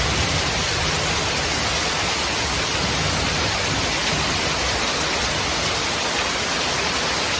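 Heavy rain falling in a steady, even hiss that does not change.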